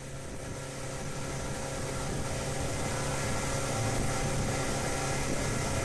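Boat's outboard motor running steadily under way, with the hiss of wake water and wind over it. The sound grows louder over the first couple of seconds, then holds steady.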